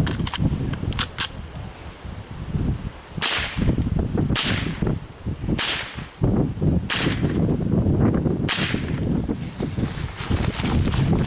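.22 LR rifle fired five times at a steady pace, a shot every second or so, over a continuous low rumble with knocks and thumps underneath.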